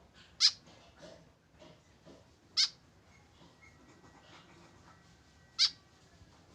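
White-breasted woodswallow giving three short, sharp calls: one about half a second in, one at about two and a half seconds, and one near the end, with fainter sounds in between.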